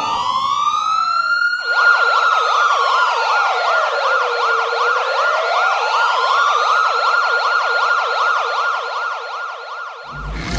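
Electronic siren with a slow wail rising and falling, joined about one and a half seconds in by a fast warble of about five cycles a second. It fades near the end as a low rumble begins.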